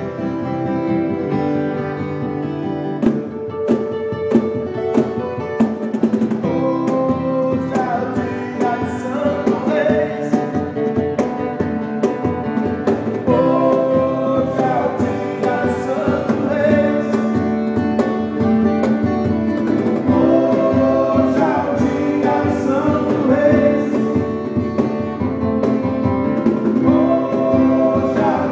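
Music led by acoustic guitar, with sustained melody notes over a steady strummed rhythm.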